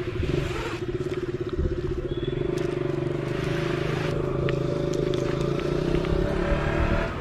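Two-stroke chainsaw engine held at a steady high speed, its pitch level throughout, dropping away near the end.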